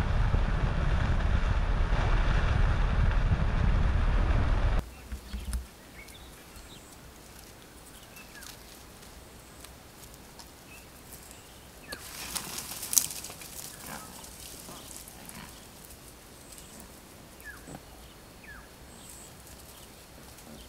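Wind buffeting the microphone of a moving vehicle, cut off suddenly about five seconds in. Quiet bush ambience follows, with scattered short bird chirps and a brief louder burst of sound about halfway through.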